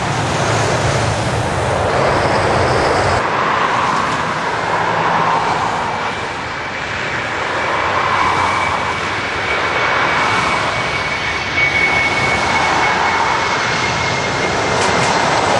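Airliner's engines rushing loudly as it comes in to land. A thin, steady high whine enters about five seconds in and sinks slightly in pitch before fading near the end.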